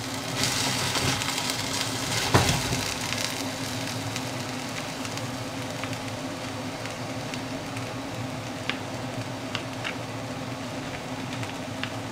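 Chopped onion sizzling and crackling steadily as it fries, with a knife knocking on a plastic cutting board while eggplant is diced: one louder knock about two and a half seconds in and a few light taps near the end.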